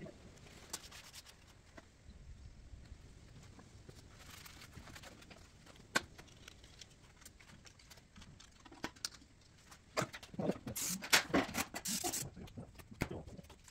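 Aerosol cleaner spray can hissing in several short bursts near the end, aimed at the engine's crankshaft seal area. Before that, only faint scattered clicks and knocks of handling.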